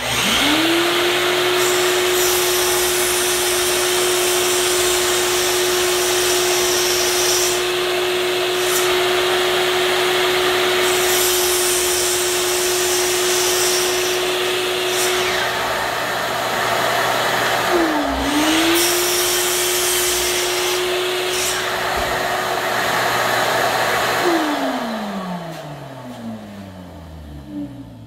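A miter saw and a Shop-Vac wet/dry vacuum start together: the saw motor spins up to a steady whine over the vacuum's rushing, and the blade is brought down through a piece of wood several times. About two-thirds through, the saw's whine dips briefly and recovers. Near the end both are switched off and wind down, the saw's pitch falling away.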